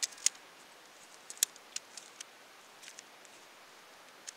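Tent pole sections clicking together as they are fitted and snapped into place: a run of sharp, irregular clicks, several in quick succession.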